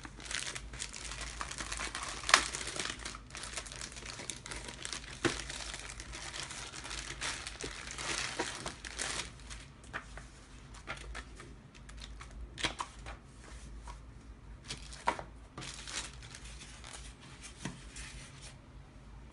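Thin plastic packaging bag crinkling and crackling as it is handled, densely at first with sharp crackles, then sparser paper rustles and taps as a printed booklet is leafed through.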